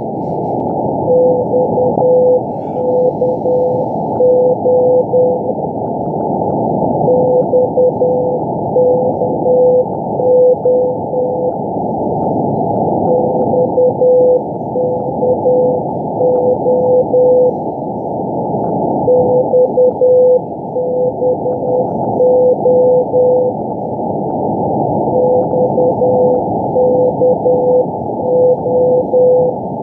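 Morse code from a shortwave beacon on 5198 kHz, heard through a receiver in CW mode as a steady-pitched beep keyed in dots and dashes, spelling XKO over and over. The same letter group repeats about every six seconds over steady, muffled band hiss.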